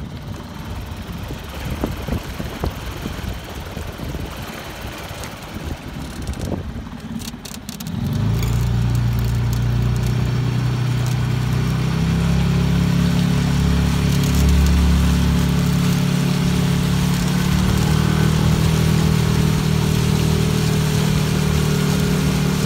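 Wind buffeting the microphone, then about eight seconds in a canoe's small outboard motor comes in with a steady drone that runs on and steps up in pitch a couple of times as the throttle opens.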